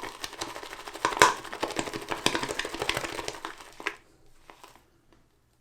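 Synthetic shaving brush whipping soap lather in a bowl: a rapid wet crackling and clicking as the lather is agitated to thicken it, stopping about four seconds in.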